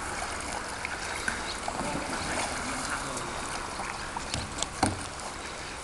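Kayak paddles dipping and splashing, with water trickling off the blades, and a single sharp knock about five seconds in.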